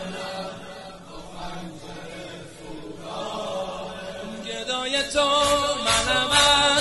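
Wordless male choir chanting sustained notes between the verses of a devotional song. About four and a half seconds in, an instrumental accompaniment with a steady percussion beat comes in.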